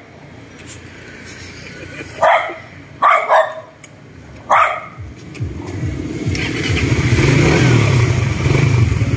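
A dog barks sharply about four times in quick succession, territorial barking between two dogs facing off. About halfway through, a motorcycle engine comes in and grows steadily louder, running to the end.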